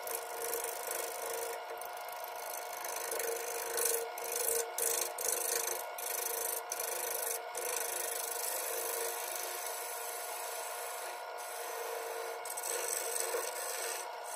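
Gouge cutting a spinning black cherry bowl blank on a wood lathe: a continuous scraping hiss of the cut over the lathe motor's steady hum. The cut grows louder and breaks off briefly several times between about four and seven seconds in.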